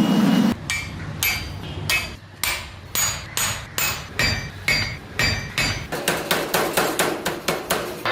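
Hammer blows forging steel on an anvil: sharp metallic strikes, each with a short ring, about two to three a second and quickening to about five a second near the end. A loud low rumble cuts off about half a second in.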